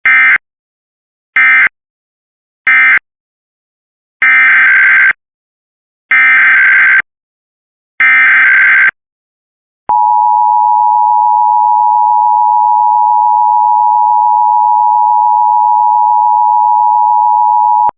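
Emergency Alert System digital data bursts: three short end-of-message bursts, then three longer SAME header bursts of warbling data tones. About ten seconds in, a loud steady attention tone starts and holds for about eight seconds.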